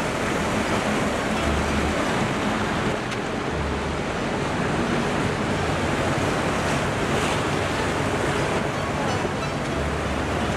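A small motorboat under way: wind buffeting the microphone and water rushing past the hull in a steady, loud wash, with low rumbles now and then.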